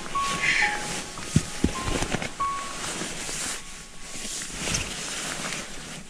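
Rustling and handling of camping gear in close, fabric and bag material crinkling, with a couple of sharp clicks about a second and a half in. A soft background music melody plays underneath and stops about two and a half seconds in.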